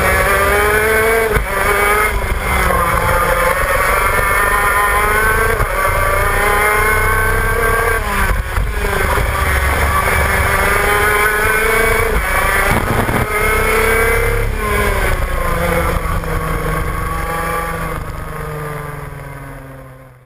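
Shifter kart's two-stroke engine heard on board at racing speed, its note repeatedly climbing through the revs and dropping sharply at gear changes and corners. The sound fades out near the end.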